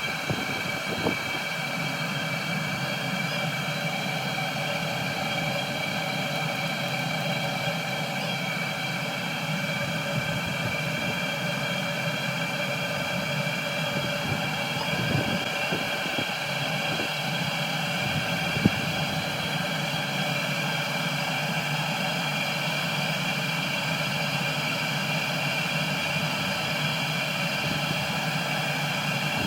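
Chinese 12 V diesel air heater running: a steady whirring hum with several held tones from its blower fan, and a few faint clicks.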